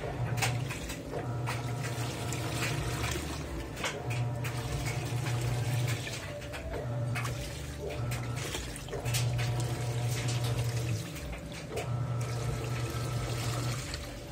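Panasonic NA-F160B5 16 kg washing machine agitating a full load of T-shirts in water. The motor hums in runs of a second or two, stopping and starting as the agitation reverses, over water sloshing and splashing.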